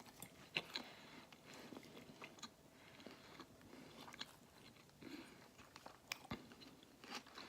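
Faint chewing and crunching of a mouthful of chicken salad, with scattered small crackles.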